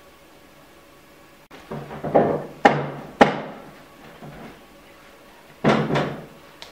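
A few loud knocks or bangs: a cluster with two sharp hits about half a second apart, then another pair near the end, each dying away quickly.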